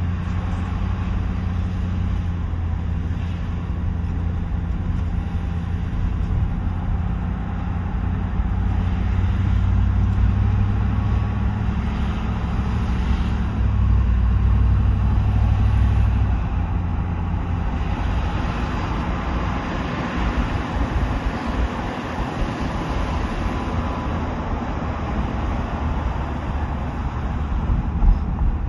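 Road noise heard inside a moving car: a steady low drone of engine and tyres under a hiss, the low drone easing off a little over halfway through.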